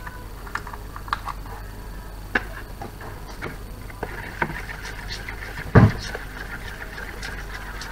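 Metal spoon stirring and scraping thick icing around a plastic bowl, with a few light clicks and knocks before the stirring. One dull thump about six seconds in is the loudest sound.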